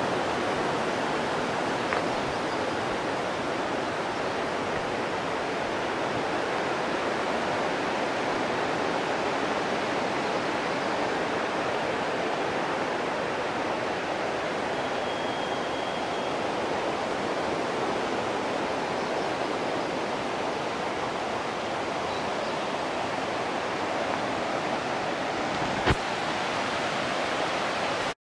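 Steady rush of the fast-flowing Mamquam River, an even wash of water noise, with one sharp click about two seconds before the sound cuts off abruptly.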